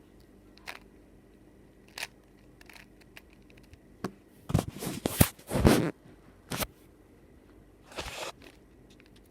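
A plastic 5x5 puzzle cube being turned: scattered single clicks, then a burst of rapid clacking turns about four and a half to six seconds in, and a short run of scraping turns near the end.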